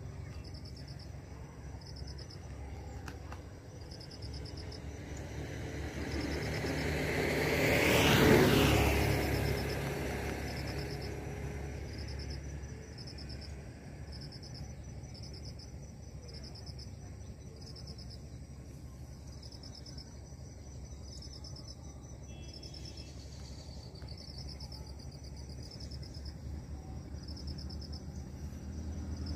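An insect chirping in short, high pulses about once a second over a steady low hum. A vehicle passes close by, growing louder to a peak about eight seconds in, then fading away.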